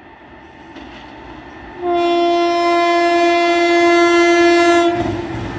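A locomotive horn sounds one long steady blast of about three seconds from an approaching express train. As the horn stops, the loud rush of the train passing at speed takes over.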